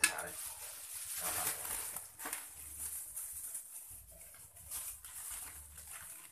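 Thin plastic bags rustling and crinkling as hands open and handle them, in two irregular stretches.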